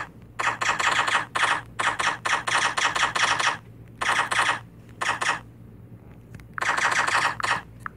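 Kika Keyboard's laser key-press sound effect played through a phone speaker with each tap, in three quick runs of keystrokes separated by short pauses.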